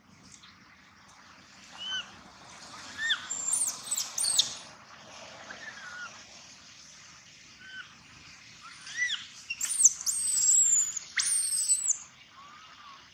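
Baby long-tailed macaque crying in a series of short, high-pitched calls, each rising then falling, with a longer, higher squeal about ten seconds in.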